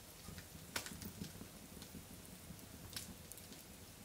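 Wood fire burning faintly, a low steady rush broken by a few sharp crackles, the loudest about a second in and another near three seconds.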